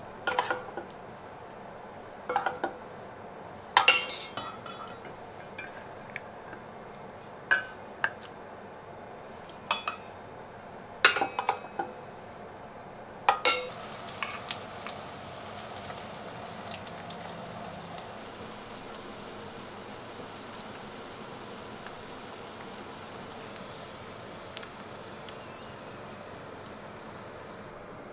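Kitchen dishes and utensils clinking and knocking, about eight sharp strikes with short ringing over the first half, then a steady hiss for the rest.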